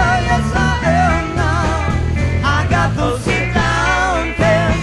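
Live psychedelic rock band playing: a wavering, bending lead melody line over a steady bass line and drums.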